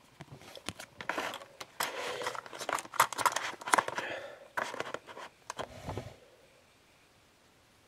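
Packaging being handled and opened: a run of crinkling, rustling and tearing with sharp snaps, stopping about six seconds in.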